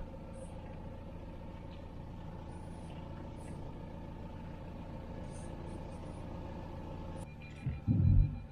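Camper van engine running steadily at low revs, heard from inside the cab as an even hum. Near the end a short, loud, low thump cuts through it.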